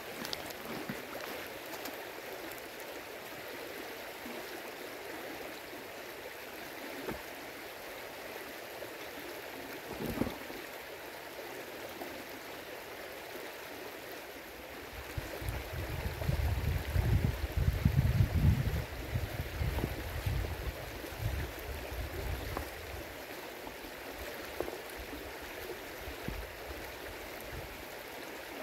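Steady rushing of a river's flowing water. About a third of the way in comes a single knock, and past the middle a loud low rumble on the microphone lasts several seconds.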